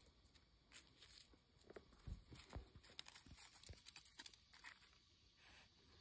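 Near silence, with a few faint short clicks and soft rustles.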